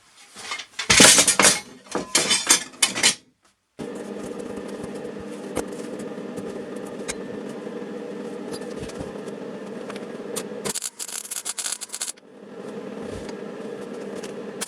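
Loud metallic scraping and clattering for about three seconds, then an electric motor starts running steadily with a hum, broken by a harsher burst of scraping noise about eleven seconds in.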